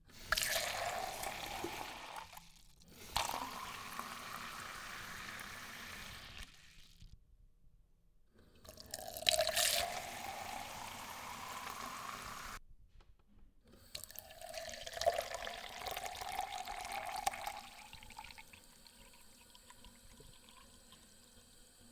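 Liquid being poured into a cup four times with short pauses in between. During the pours the pitch of the filling sound rises as the cup fills.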